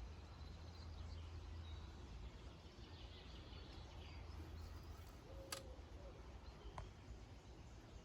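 Faint outdoor ambience: a low steady rumble with faint bird chirps, and two brief clicks about a second apart near the middle.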